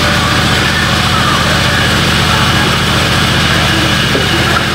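Large belt-driven sawmill band saw running steadily, with a low machine hum that has a fast, even pulse.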